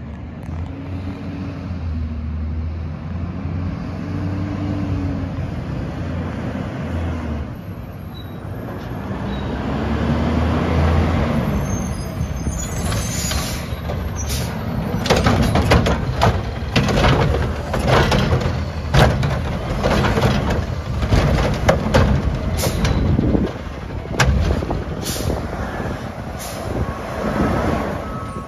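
Garbage truck's diesel engine revving up and down as it pulls in, with hisses of air brakes. It then goes on to a run of metallic clanks and bangs as its Curotto-Can arm grabs and handles a trash cart. A few short electronic beeps sound near the end.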